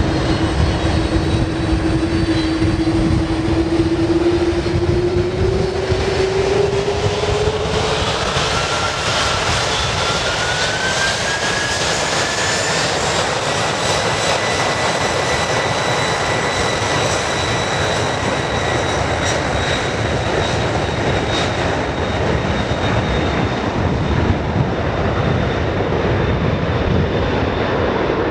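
Jet airliner engines running loud over a constant rush of noise, with whining tones that rise in pitch over several seconds partway through and then hold steady.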